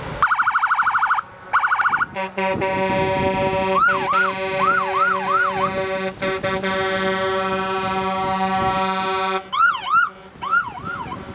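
Police car siren, first a rapid pulsing tone and then quick rising-and-falling yelps. A truck air horn sounds one long steady blast under it, from about two seconds in until near the end.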